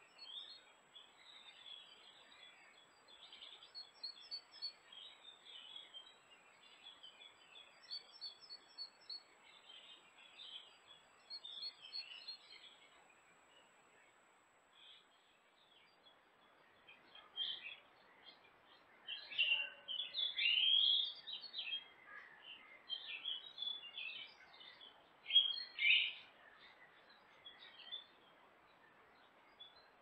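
Woodland songbirds singing and calling, a steady scatter of short chirps that becomes louder and busier after about the middle. A faint, steady high tone runs under the first half and then stops.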